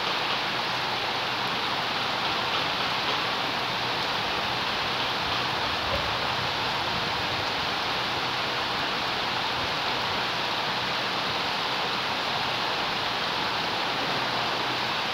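Steady rain falling, an even hiss of drops on wet ground and foliage at a constant level.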